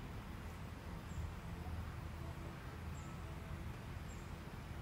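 Low, steady background rumble with a couple of faint high ticks; no bird call is heard.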